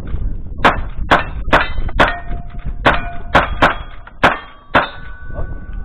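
Nine rapid gunshots at a cowboy action shooting stage, a little under half a second apart with a short pause in the middle, each followed by the ring of steel targets being hit.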